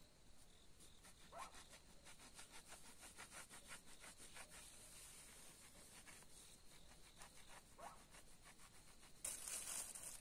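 Faint, quick scraping or rubbing strokes repeated several times a second, with short pauses between runs. About a second before the end, a louder rustling crinkle starts.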